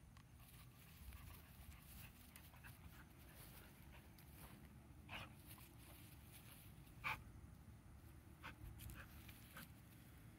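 Two dogs tugging at a stick held between their mouths, faint dog sounds throughout, with two short, louder noises about five and seven seconds in.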